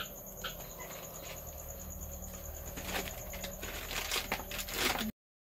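Rustling of banana leaves being handled and laid on a steel plate, a few rustles around three and four seconds in, over a steady high insect trill. The sound drops out completely just before the end.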